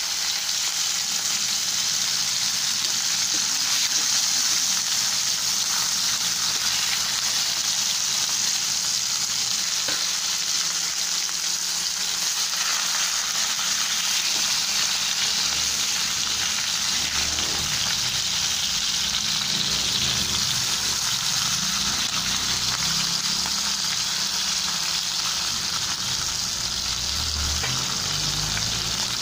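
Raw pork steak slices frying in hot oil in a pan: a steady, loud sizzle.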